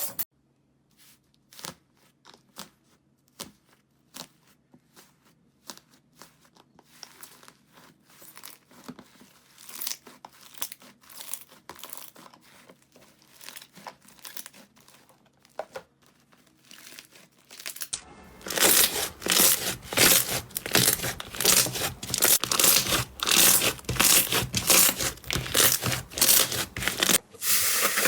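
Slime being handled by hand, giving crackling, popping clicks: sparse and quiet at first, thicker in the middle, then loud and dense crackling from about two-thirds of the way in.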